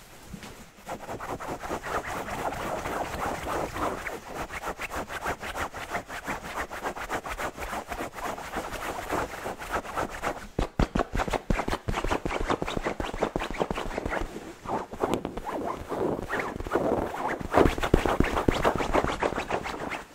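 Fingernails scratching and rubbing a shiny woven pillowcase close to the microphone, in quick repeated strokes that are loudest near the end.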